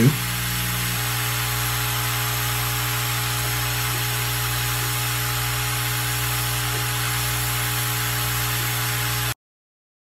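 Hot air rework station blowing steadily, a hiss of air over a low motor hum, while heating a surface-mount component to solder it in place. The sound cuts off suddenly near the end.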